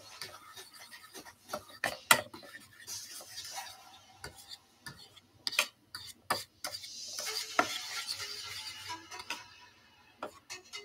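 Metal spoon stirring a thin flour-and-water batter in a bowl, scraping and clicking irregularly against the bowl's sides to work out lumps, with longer stretches of scraping about three seconds in and again past the middle.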